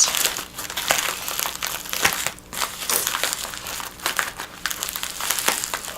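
A heavily taped mailing bag being crinkled, crushed and pulled at by hand, with irregular crackles and rustles as he struggles to tear it open.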